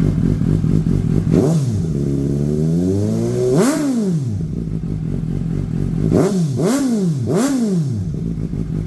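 2023 Suzuki GSX-S750's inline-four engine through a Dominator slip-on exhaust with the dB killer insert removed, idling and being revved: one longer rev that climbs and falls back in the first half, then three quick blips of the throttle near the end, settling back to idle each time.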